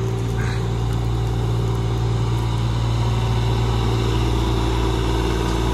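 Kubota KX040-4 mini excavator's diesel engine running steadily while the machine works its boom and bucket.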